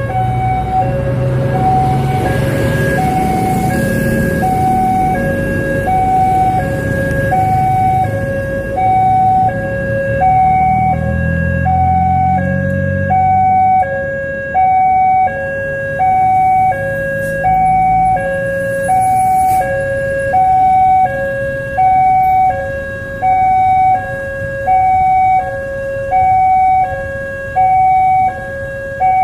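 A railway level crossing's electronic warning siren sounds a steady two-tone hi-lo alarm. Each tone lasts about a second and they alternate over and over, signalling that the crossing is closing for a train. Road vehicles pass in the first half.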